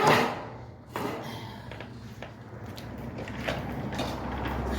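A knock at the start and another about a second later, then quieter scraping and rattling as gas-grill wheels and metal leg parts are handled and fitted during assembly.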